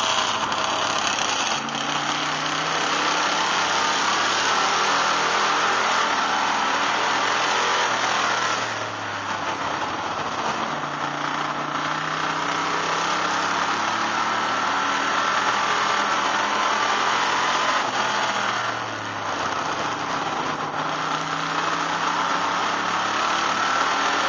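Enduro race car's engine running hard at speed, heard from inside the car over a heavy haze of road and wind noise. It eases off twice, about a third of the way in and again about three quarters through, and each time climbs back up in pitch.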